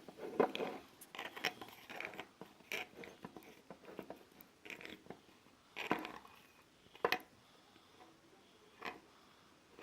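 Spoon stirring a thick toothpaste-and-salt slime mixture in a plate: irregular squishy scraping with a few sharper clicks of the spoon against the plate.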